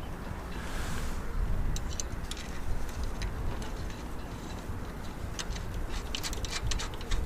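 Light metallic clicks and ticks of stainless screws and washers being handled and screwed back into the anchor well, over a steady low rumble. The clicks come in scattered clusters, busiest a couple of seconds in and again near the end.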